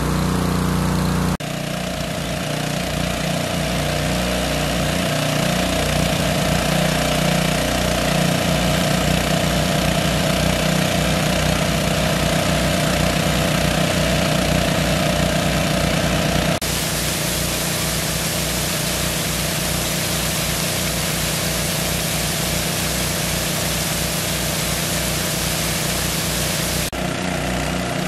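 Small engine-driven water pumps running steadily, with the hiss of their discharge jets spraying onto gravel. The sound shifts abruptly a few times, at cuts between shots.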